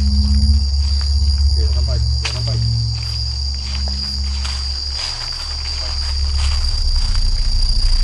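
Night insects, crickets among them, trilling steadily at a high pitch over a loud low droning hum.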